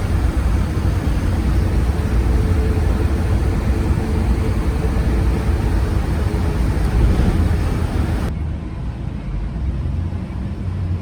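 A car on the move: a steady low rumble of road and engine noise. The higher hiss drops away suddenly about eight seconds in.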